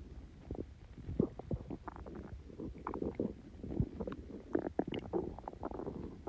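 Stomach growling and gurgling, gassy and very bubbly after Coke and Mentos: a busy, irregular run of short gurgles and pops, a few of them squeaking higher.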